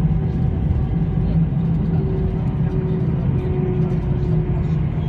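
Steady low cabin rumble inside an Airbus A320-214 rolling on the ground just after landing, with a faint steady hum above it.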